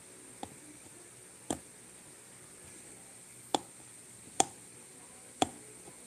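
Sharp clicks and taps of fingers handling a small cardboard product box, about five at uneven spacing, over a faint steady high hiss.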